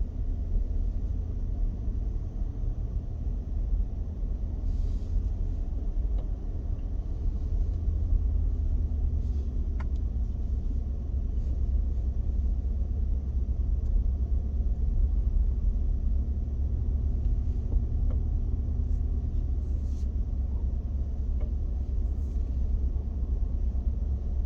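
A car driving along a paved road, heard from inside the cabin: a steady low rumble of engine and tyres, with a few faint ticks.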